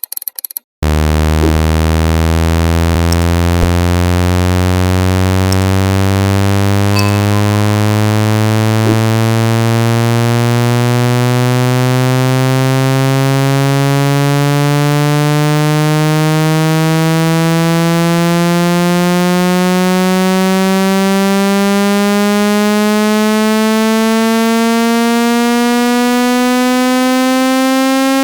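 Synthetic speaker-cleaning tone, a frequency sweep meant to vibrate water out of a phone speaker: a loud, buzzy tone rich in overtones that climbs slowly and evenly from a low hum to a higher pitch. It follows a brief burst of rapid clicks in the first second.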